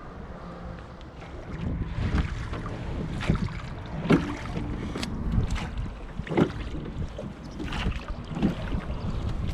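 Oars working a wooden rowboat: sharp knocks and splashes at the strokes, irregularly about once a second, over a low wind rumble on the microphone.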